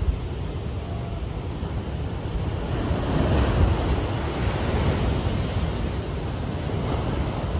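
Ocean waves crashing against the sea walls of a seaside rock pool. The surf swells louder about three seconds in as a big wave breaks and sends up spray, then eases off, with wind buffeting the microphone.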